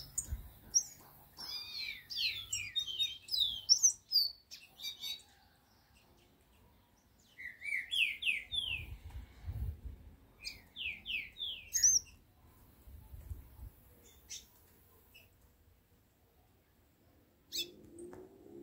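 A caged songbird, the chiviro verde, singing: short phrases of three or four quick, slurred down-sweeping whistles, three phrases with pauses of a few seconds between them.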